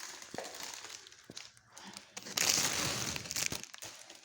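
Packaging crinkling and rustling, with a few small clicks, as a toy is pulled out of its wrapping and box; the loudest rustle comes a little past halfway.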